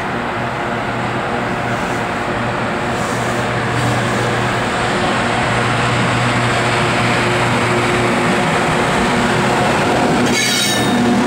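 Class 92 electric locomotive approaching and passing close by, its electrical equipment giving a steady hum over the rumble of wheels on rail that grows slowly louder. About ten seconds in comes a brief high-pitched squeal.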